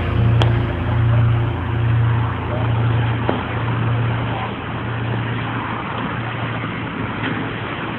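Car running, a steady low rumble and hiss, with a low pulsing hum that fades out over the first five seconds.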